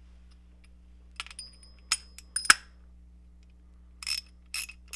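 A few sharp metallic clinks of steel tool parts being fitted together. About four seconds in, a ratchet starts clicking in quick regular bursts, about three a second, as the 1/2-inch spinner adapter is worked.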